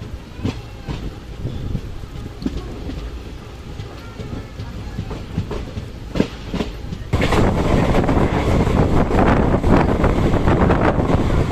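Kaveri Express passenger coaches rolling slowly, with a low rumble and scattered clacks of the wheels over rail joints. About seven seconds in, the sound jumps abruptly to a much louder, dense rush of train noise.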